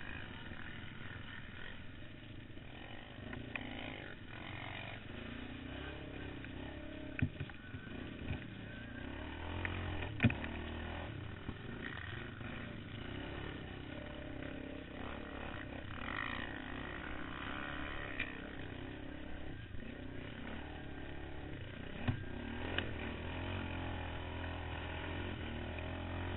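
ATV engine running under load as the quad is ridden over a rough dirt track, its pitch rising and falling a little with the throttle. Now and then the bumps give sharp knocks, the loudest about ten seconds in.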